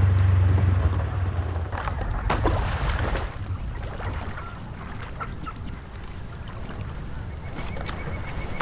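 A motor running steadily, which shuts off just under two seconds in, followed by scattered knocks and rustling.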